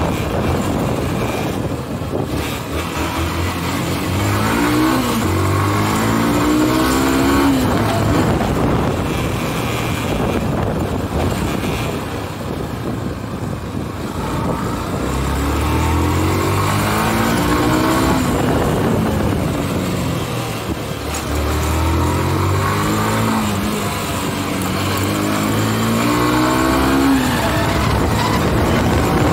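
A road vehicle's engine, heard from on board, accelerating and climbing in pitch through the gears, about 4, 15 and 22 seconds in. Steady road and wind noise runs underneath.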